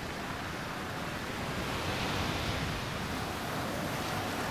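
Surf breaking and washing over the shore in a steady rush of white water, swelling a little about two seconds in.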